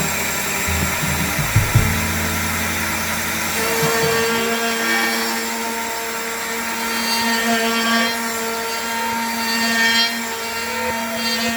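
A woodworking power tool's motor running steadily with a constant hum. A few low knocks come in the first two seconds.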